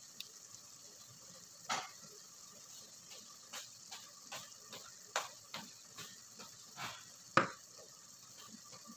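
Irregular metal clinks and taps against a stainless steel pot, about a dozen, the loudest near the end, over a faint sizzle of diced lamb browning in the pot.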